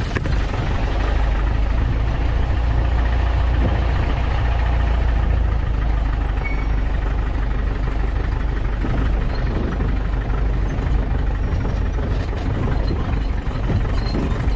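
Off-road vehicle's engine running steadily with a strong low rumble as it drives along a rough forest track.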